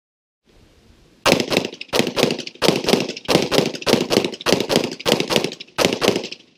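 Rapid string of 9 mm Glock pistol shots, fired in quick groups of two or three, starting about a second in and running for about five seconds.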